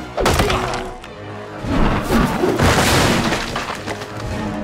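Film score music with fight sound effects over it: a sudden heavy hit about a quarter second in, then a longer, louder crash around two to three seconds in.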